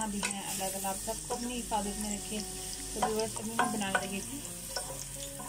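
Sliced onions sizzling as they fry in oil in a metal pot, with a wooden spatula stirring and scraping them around the pot.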